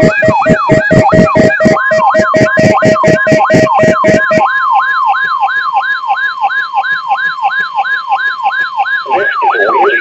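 Several weather alert radios sounding their alarms at once for a weekly test. A siren-like falling sweep repeats about three times a second over rapid pulsed beeping, and the beeping stops about four and a half seconds in. A steady tone runs under most of it, and a broadcast voice comes in near the end.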